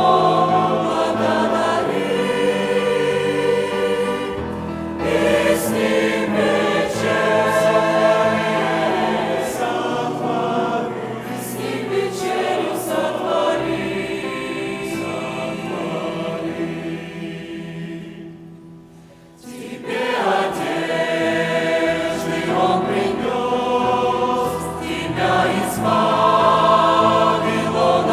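Church choir singing a hymn in sustained phrases, falling away to a short pause about 18 seconds in before the singing resumes.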